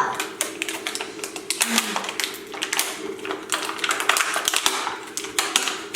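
Rapid, irregular clicking and tapping of buttons being pressed on a toy game phone, over a faint steady tone.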